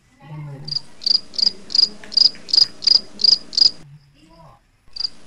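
A cricket chirping in a steady rhythm, about three short chirps a second, over a faint low hum. The chirping cuts off abruptly just before four seconds in and starts again about a second later.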